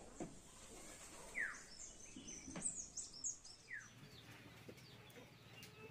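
Birds calling: a couple of short falling chirps and a brief burst of high twittering around the middle, over faint outdoor background noise.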